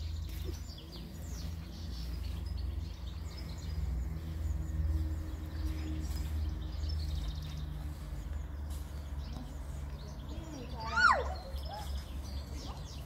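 Outdoor ambience with a steady low rumble and faint bird chirps. About eleven seconds in, a child gives one short, loud, high-pitched call that rises and falls.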